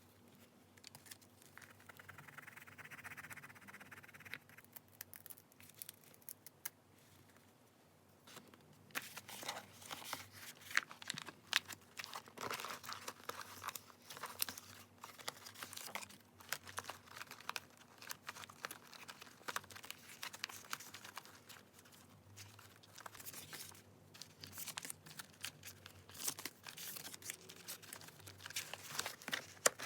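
Paper being handled for journaling: soft rustling and crinkling with small taps and scrapes, sparse at first and much denser from about nine seconds in.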